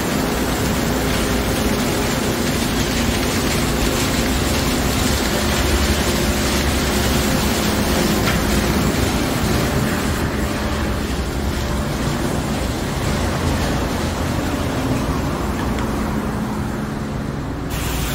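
Automatic car wash tunnel machinery running: a steady, loud rush of noise over a low motor hum. The high hiss thins out about halfway through.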